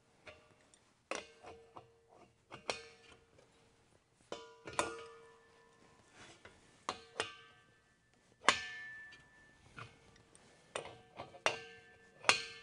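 Irregular metal clinks and knocks, about a dozen, many leaving a short ringing tone, as the brass refill adapter fittings and steel propane tanks are handled and threaded together.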